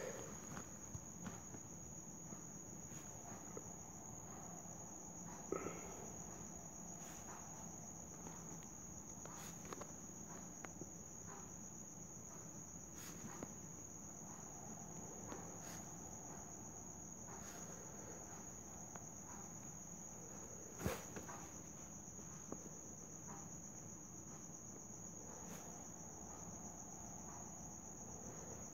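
A cricket trilling steadily on one high note, faint behind quiet room noise. There are scattered faint ticks, and one sharper click comes about two-thirds of the way through.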